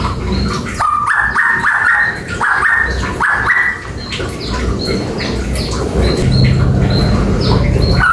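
Cucak pantai (varied honeyeater) singing: a quick run of short, rising whistled notes in the first half, with brief higher notes scattered throughout.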